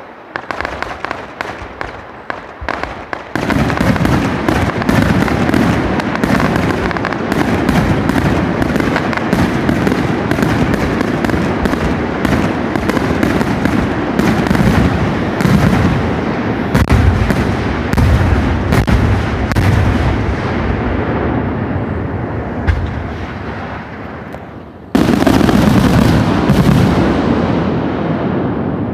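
Fireworks going off: a few seconds of sharp, scattered crackles, then a dense, continuous barrage of bangs and crackling that slowly dies down, before one more loud burst near the end.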